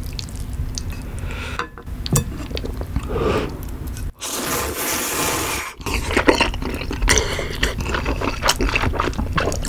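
A person eating spicy kalguksu, thick knife-cut wheat noodles, close to the microphone. There is a long slurp of noodles about four seconds in, then wet, clicky chewing.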